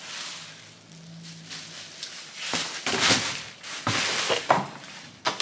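Bubble wrap and plastic packaging rustling and crinkling as the plastic parts of a small portable washing machine are handled and pulled from a cardboard box, with the louder rustles and a few light knocks in the second half.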